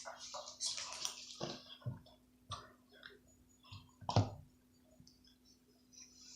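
Slime squished and pulled by hand: irregular wet squelches and small clicks, the strongest about four seconds in.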